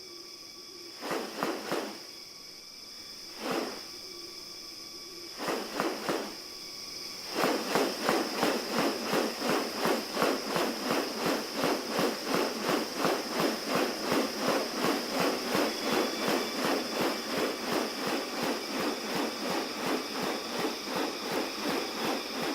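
Forest ambience with a steady high insect drone. A few short noisy bursts come in the first few seconds, then about seven seconds in a fast run of noisy pulses begins, about three a second, and keeps going.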